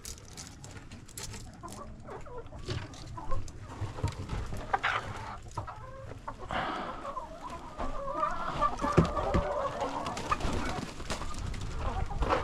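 Domestic hens clucking in a coop, the calls building from about halfway in, with light clicks and knocks before them.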